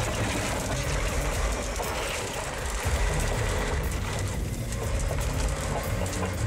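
Large crawler bulldozer running under load as its steel tracks clank and roll over a car, with the car's sheet metal crunching beneath them.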